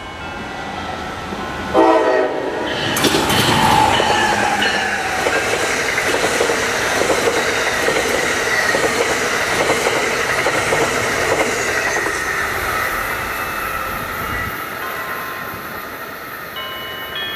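Amtrak ACS-64 electric locomotive sounding a short horn blast about two seconds in. The train then passes at speed: a loud rush of wheels on rail and air that fades slowly as the coaches go by.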